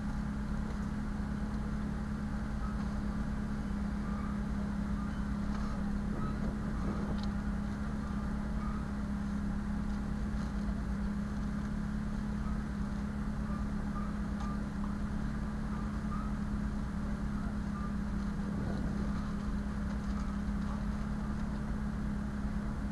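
A 1999 gasoline Ford E150 van's engine running steadily, heard from inside the cab as a constant low hum.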